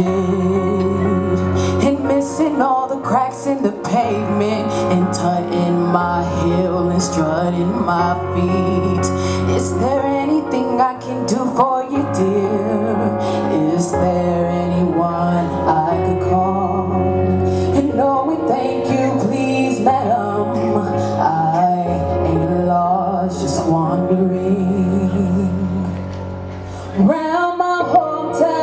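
Choir of mixed male and female voices singing a slow song with accompaniment, the chords changing every couple of seconds. It goes briefly softer near the end, then the voices swell back in.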